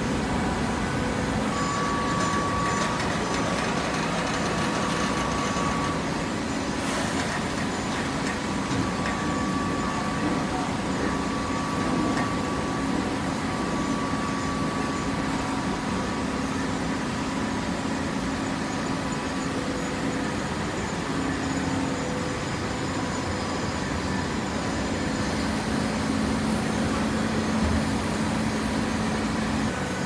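Hydraulic horizontal baler running: a steady machine drone with a few held tones that come and go above it.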